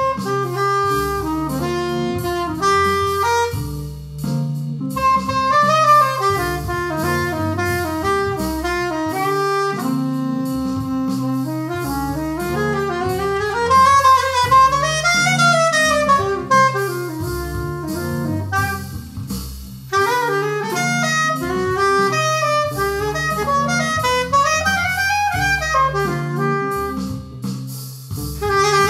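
Music from a jam: a saxophone-like lead melody, with some phrases bending up and down in pitch, over a bass line and drums.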